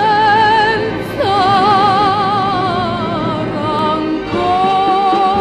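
Music: a long held note with a strong wavering vibrato, slid up into at the start and again about a second in. About four seconds in a new passage begins, with a steady held tone over a low beat.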